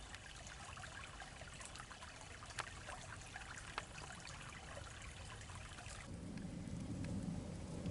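Small stream trickling and babbling, with fine crackling ticks over it. About six seconds in the sound changes suddenly: the bright trickle fades and a low rumbling noise comes up.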